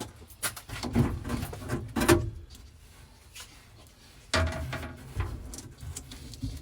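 Knocks and clatters of a rusted glass-holder frame being pulled and worked loose from a sandblasting cabinet, with scraping and handling noise between a handful of sharper knocks.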